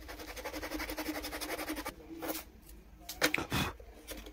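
Metal hand file rasping across the hardened Araldite-and-sawdust filler on the toe of a cricket bat, in quick short strokes. A few louder, rougher scrapes come about three seconds in.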